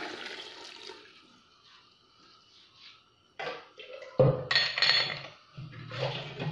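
Water poured from a pan into a pressure cooker of lentils and vegetables, splashing for about a second and a half before fading. About four seconds in a sharp knock starts a run of louder sounds that the material does not identify.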